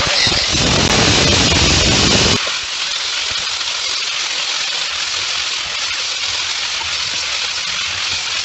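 Steady mechanical noise, a power tool or machine running. About two and a half seconds in it changes abruptly from a rough, heavier sound to a smoother, somewhat quieter hiss.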